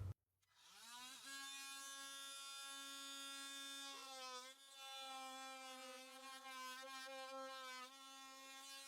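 KIMO 20V cordless oscillating multi-tool with a saw blade, revving up in pitch about a second in and then buzzing steadily as it cuts through molding. Its pitch wavers briefly around the middle and again near the end as the blade takes the load.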